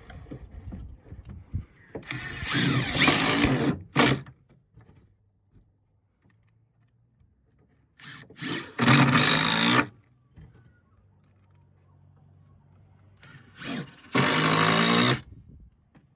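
Cordless power driver driving three batten screws into structural timber: three runs of motor whine, each under two seconds and each after a short trigger blip, with quiet between.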